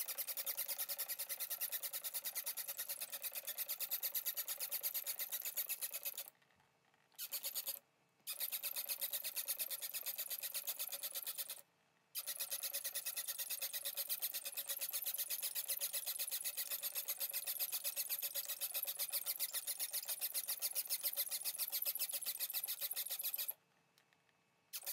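Fast, steady scrubbing of the inside of a Fiat 126 BIS starter motor's field-coil housing as it is cleaned of oil and dirt in cleaning fluid. It stops briefly three times in the first half and once more near the end.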